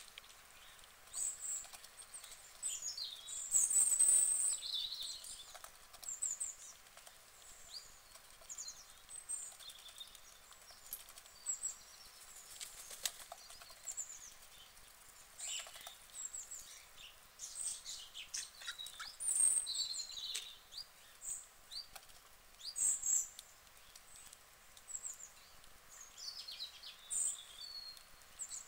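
A white duck and a female mallard feeding from a metal trough, their bills clicking and rattling against the metal and grain in scattered bursts, with short high chirps of small birds throughout.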